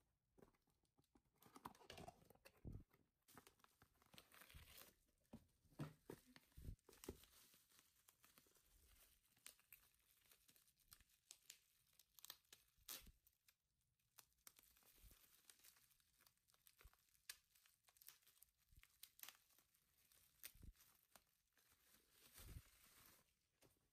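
Faint crinkling and rustling of bubble wrap and a paper mailer envelope being handled and pulled open by hand, with many small clicks and taps scattered through it.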